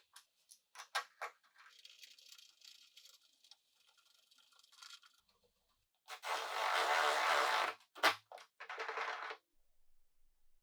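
Power drill boring into plywood in two short bursts, the first and louder lasting nearly two seconds, with a sharp knock between them and scattered clicks of handling before.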